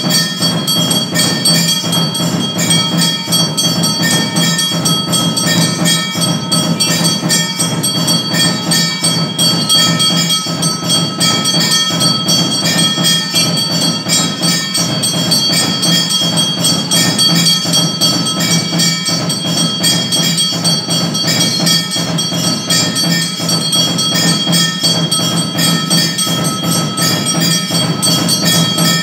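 Temple bells ringing continuously in fast, even strikes, with percussion, as ritual accompaniment to a milk abhishekam.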